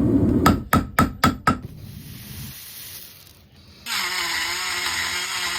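Rough grinding noise that stops, then five sharp hammer blows on steel, about four a second, each ringing. After a quiet pause, a power tool whirs steadily.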